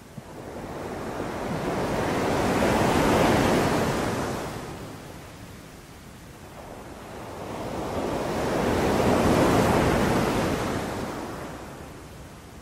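Sea waves breaking on a beach: two waves, each swelling to a crash, about three seconds in and again about nine seconds in, then washing back out.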